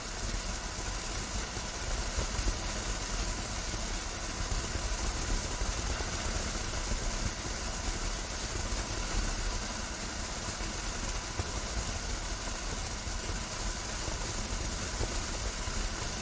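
Sky King Gold Feast crackling fountain firework burning, a steady hissing spray of sparks with dense crackling throughout.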